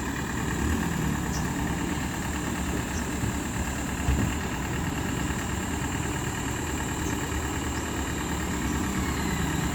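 An engine idling, a steady low rumble with no change in speed.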